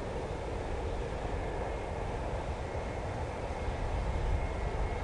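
A steady rushing roar of airfield noise, with a faint high whine over it.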